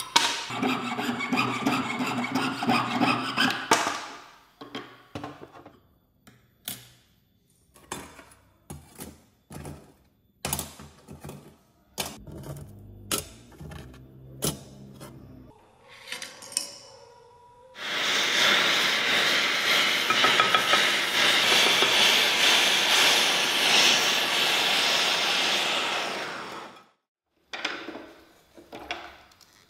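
A jeweller's saw cutting through a metal sheet for about four seconds, then scattered light taps and clicks of small metal pieces being handled, followed by about eight seconds of a loud steady rushing noise that stops suddenly.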